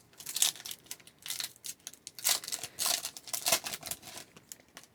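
Wrapper of a hockey card pack crinkling and tearing as it is opened, a run of irregular crackly rustles.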